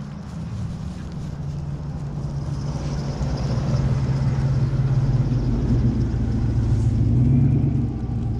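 Nissan Titan pickup truck's engine running as the truck drives up and pulls in close, a low hum growing steadily louder and easing off near the end as it slows to a stop.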